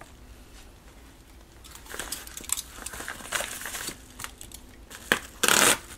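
Paper mailer envelope crinkling and rustling as it is handled, quiet for the first second or two, with a short louder burst of crackling near the end.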